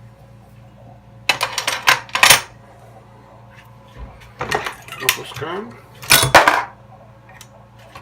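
Metal clinking and clacking from a Dillon XL650 progressive reloading press being worked by hand, in three short spells of clatter, the last one the loudest as the handle is lowered.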